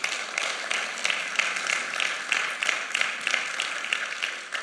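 Congregation applauding: many people clapping together.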